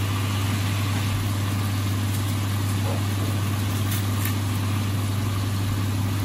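Steady low mechanical hum under an even hiss from cabbage, carrot and sausage slices frying in a pan, with a few faint clicks about four seconds in.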